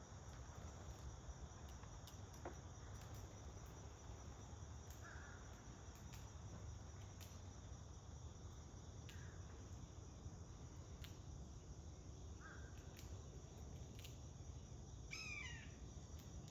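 Faint outdoor morning ambience with wild birds calling: short, scattered calls every few seconds, and a quick series of chirps falling in pitch near the end. A faint steady high insect drone runs underneath.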